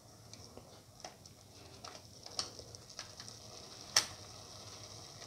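Spatula knocking and scraping against the pot while breaking blocks of instant noodles in boiling water: a scatter of small clicks, with one sharp knock about four seconds in, over a faint steady hiss.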